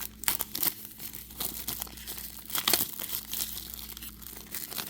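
Plastic toy packaging being handled and opened by hand, with irregular crinkling and crackling.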